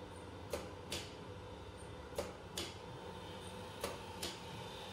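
832C2 automatic steel-rule bending machine working: sharp mechanical clacks in pairs a little under half a second apart, repeating about every second and a half, three pairs in all, over a steady machine hum.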